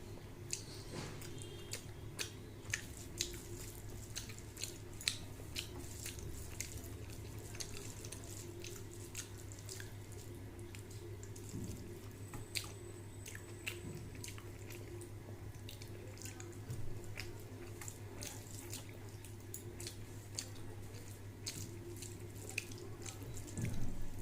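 Close-up eating sounds: a person chewing a meal of rice and rohu fish curry, with frequent short wet mouth clicks and smacks, over a steady low hum.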